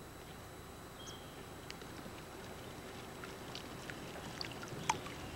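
Faint, steady water noise from a small boat on calm water, with a few brief, high bird chirps and small ticks scattered through it, the sharpest tick about five seconds in.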